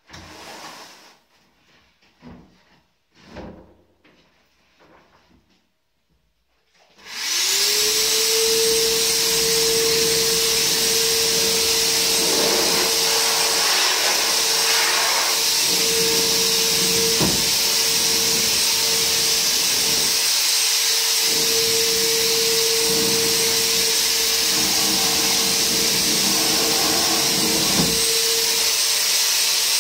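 Faint rustling and knocks of handling, then about seven seconds in a handheld electric insecticide sprayer switches on. Its motor quickly spins up to a steady whine with a loud rushing hiss as it sprays against bed bugs.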